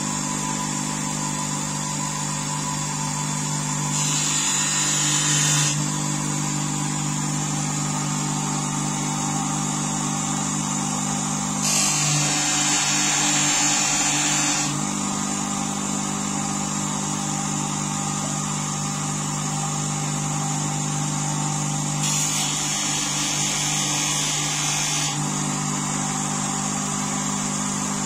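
Bench grinder motor running steadily with a steady hum. Three times, for a few seconds each, the steel blade of a hook knife is pressed to the spinning felt polishing wheel loaded with abrasive paste, adding a hiss while the edge is polished.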